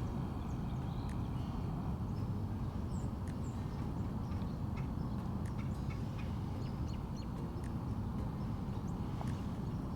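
Creekside ambience: a steady low rush of moving water or wind, with faint, scattered bird chirps and small ticks above it.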